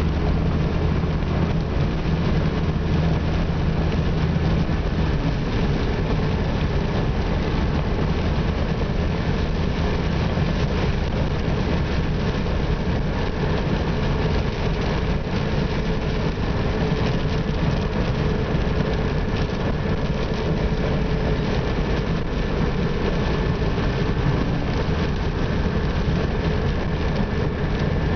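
Inside a vehicle's cab at highway speed on a rain-wet road: the engine running steadily with a low hum, under a constant hiss of tyre and wind noise.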